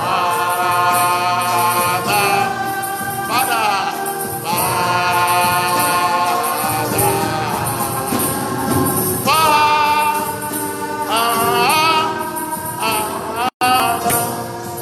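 Gospel worship song: long, drawn-out sung notes with a wavering vibrato over steady backing music. The sound cuts out for an instant near the end.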